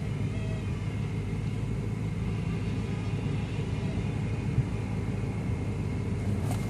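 Car engine idling steadily, with a faint high whistle over the low rumble; the engine is suspected of a vacuum leak. A brief click near the end.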